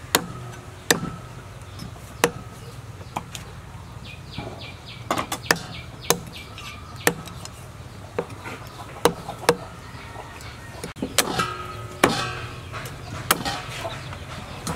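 Meat cleaver chopping through a raw chicken's legs and joints onto a wooden chopping block: about a dozen sharp, irregularly spaced chops, one every second or so.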